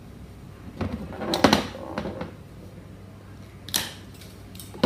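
Light clicks and knocks from a Magura hydraulic rim-brake unit being handled. There is a cluster of them about a second in and a sharper single click near the end.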